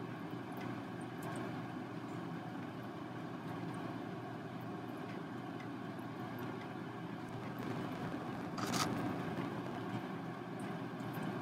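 Steady low background rumble, with a short burst of noise about nine seconds in.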